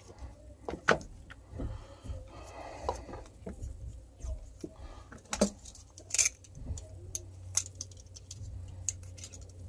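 Handling noise over a workbench: scattered small clicks, taps and rattles as hands work the wire connectors and the wiring of an opened hammer drill and pick up a roll of vinyl electrical tape, with a short crackly stretch about two and a half seconds in. A faint low hum runs underneath.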